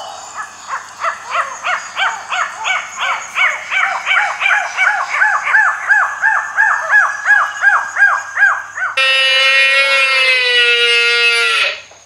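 Ring-tailed lemurs giving a rapid series of short, arched, yapping calls, about three a second, for about nine seconds. The calls then break off suddenly and an animal's single long call takes over, falling slightly in pitch and lasting nearly three seconds.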